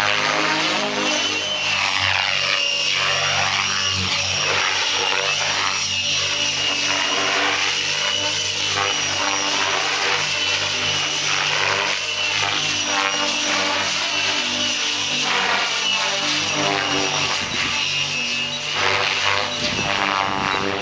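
Electric radio-controlled helicopter, a JR Vibe E-8 with a Scorpion 4035 brushless motor, flying aerobatics. Its rotor blades chop and swoosh over a steady motor and gear whine, with the swooshing sweeping up and down as it banks and turns.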